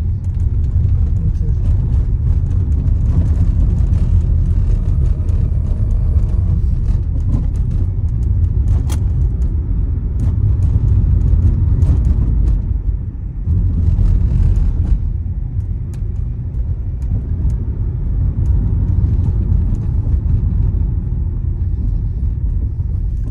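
Honda Accord V6 engine and road noise from a car driving uphill under load: a steady low rumble that eases briefly about halfway through. The engine pulls the slope without any misfire.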